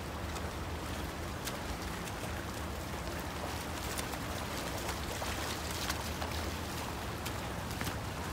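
Swimmers splashing as they swim freestyle in a pool, with scattered small splashes over a steady low hum.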